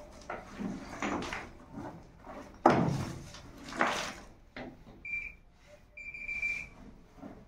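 Loose bricks and rubble clattering and scraping as they are dug through by hand, with one loud knock about two and a half seconds in. Near the end an electronic detector tone beeps twice, a short beep and then a longer one.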